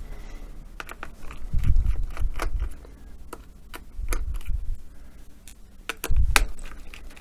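Scattered small clicks and a few soft knocks of a hand screwdriver and small metal parts as the hinge screws of a laptop's display unit are undone.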